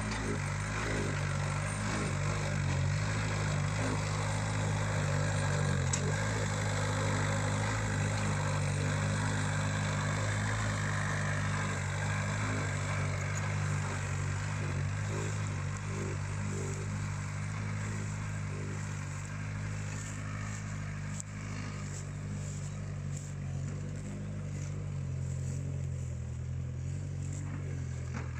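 Elpol K1 mini tractor's swapped-in 1.4 litre VW Polo diesel engine running steadily under load as it tows a trailer of firewood. It gets slightly quieter in the second half as it moves away.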